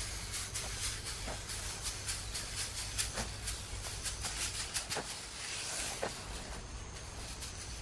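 Outdoor field ambience: wind rumbling on the microphone under a steady hiss, with many small, irregular ticks and crackles that come thickest in the first few seconds.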